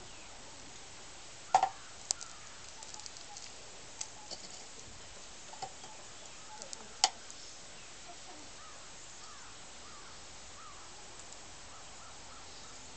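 Quiet outdoor background hiss with a few short, sharp sounds standing out, the loudest about a second and a half in and again about seven seconds in.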